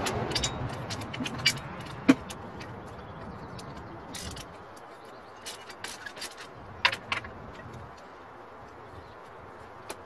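Irregular metallic clicks and clinks of a hand wrench working the bolts that hold a turbocharger to its manifold. A low rumble fades away over the first four seconds or so.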